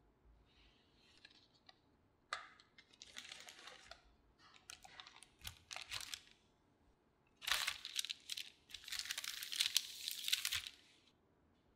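Baking paper rustling and crinkling as it is peeled away from a baked sponge cake, in several crackly bursts with sharp clicks; the loudest, longest bursts come in the second half.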